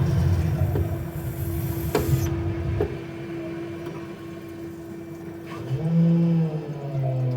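Water heater making an abnormal noise: a low rumble stops about three seconds in, leaving a faint steady tone. Near the end a loud, low, moaning hum sets in, its pitch wavering.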